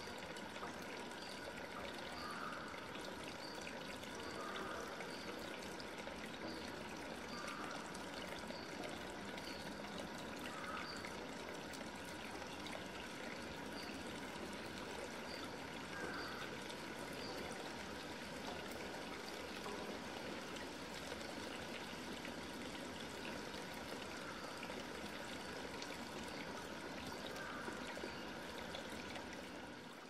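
Steady trickling, running water. A faint high peep repeats about once a second through the first half.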